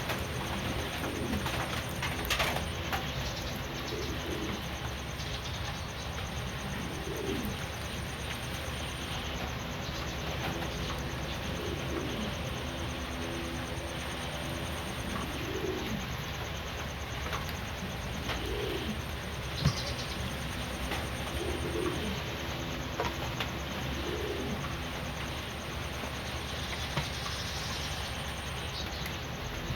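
Pigeons or doves cooing, low repeated coos every couple of seconds over a steady background hiss, with an occasional sharp click.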